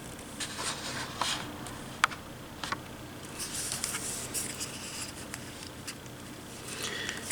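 Hands handling a GoPro on a magnetic quick-release mount: scattered light plastic clicks and taps, the sharpest about two seconds in, with faint scraping and rubbing in between.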